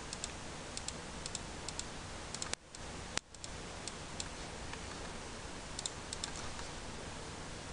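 Computer mouse clicking: a dozen or so light, sharp clicks, many in quick pairs, over a steady background hiss. The hiss cuts out briefly twice, about a third of the way in.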